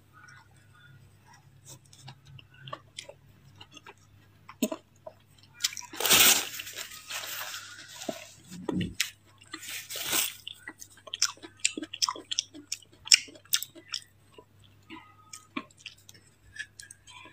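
Close-up chewing and crunching of ice coated in matcha powder, many small crisp crunches scattered throughout. About six and ten seconds in come two louder bursts of rustling as a paper tissue is wiped across the mouth.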